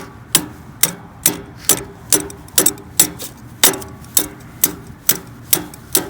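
A hammer tapping a lawn sweeper's brush part into place: about a dozen sharp strikes, roughly two a second, each with a short metallic ring.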